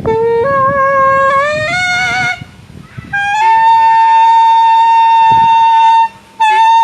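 Saxophone playing a slow melody: a few notes stepping upward, a short break, then one long held note for about three seconds, and a fresh note near the end.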